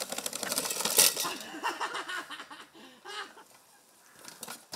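A small children's bike rattling and clattering over a bumpy dirt trail, with a loud knock about a second in, and people laughing in quick bursts.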